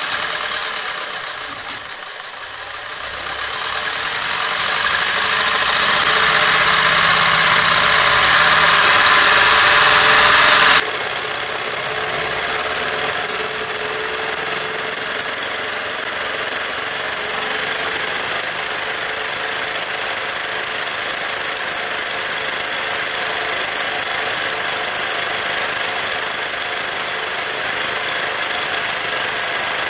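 Sewing machine motor overvolted on a 440 V three-phase supply, running flat out. It grows louder over several seconds, then drops suddenly about eleven seconds in to a steady, somewhat lower running that carries on.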